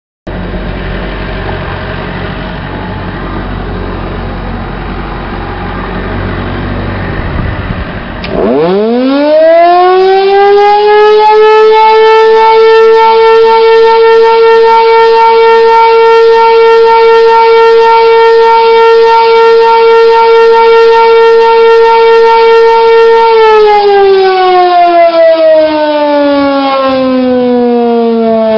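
Sentry 16V1TB outdoor warning siren sounding a short alert blast. Over steady background noise it winds up quickly about eight seconds in and holds one loud steady tone for about fourteen seconds. The power then cuts and it starts winding down, its pitch falling slowly.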